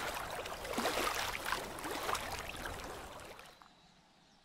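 Water splashing and gurgling, fading out about three and a half seconds in.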